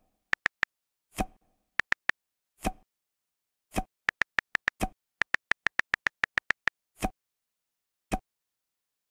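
Chat-app sound effects: runs of quick, light tapping clicks like a phone keyboard, broken up by six soft pops, each as a message bubble appears.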